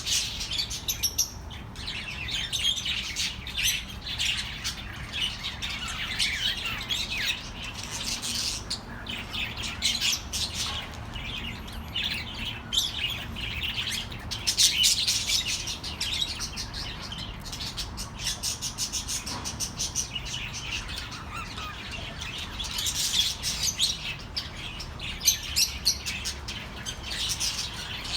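Several budgerigars chirping and chattering without a break, a dense mix of quick high chirps and squawks.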